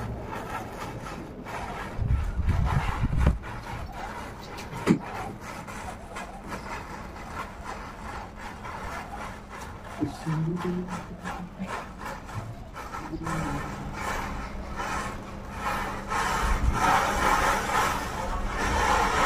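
A chain of matchsticks igniting one after another: a continuous crackle and fizz of match heads flaring, with scattered sharp pops. It grows louder near the end as the flame spreads into a cluster of matches where the rows meet.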